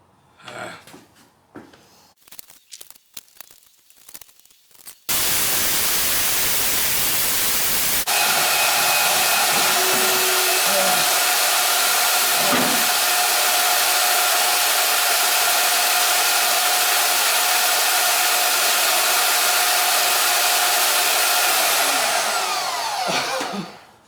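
Handling knocks, then an electric power tool started abruptly for metal cutting: a loud rushing noise for a few seconds, then a steady high motor whine that winds down and falls in pitch near the end as the tool is switched off.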